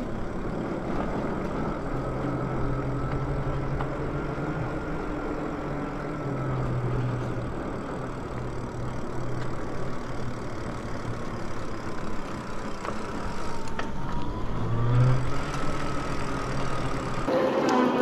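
Electric bike on the move: steady wind and tyre rush on the handlebar microphone, with a faint electric motor whine that drifts in pitch with speed. Near the end a louder, rising motor whine comes in.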